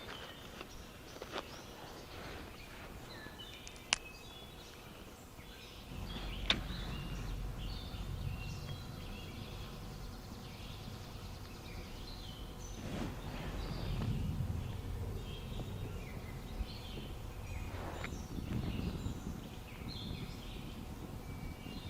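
Small birds chirping and calling. About six seconds in a low rumble sets in, and there are two sharp clicks.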